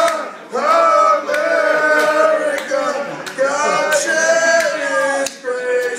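Men singing a song in held, sustained notes, with short breaks between phrases.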